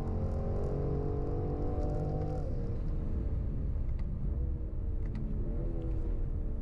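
BMW M440i's inline-six petrol engine accelerating hard in fourth gear, its pitch rising steadily. About two and a half seconds in the throttle lifts and the revs fall as the car slows, then the pitch jumps up twice as it changes down into third.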